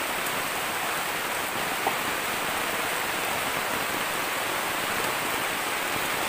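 Heavy tropical rain falling steadily on forest foliage and leaf litter, an even hiss of many drops with no let-up. A single sharp tap about two seconds in.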